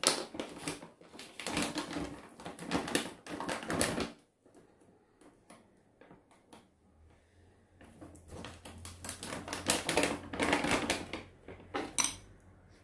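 Rapid clicking and clattering as kitchen utensils and containers are handled on a table. It comes in two bouts about four seconds apart.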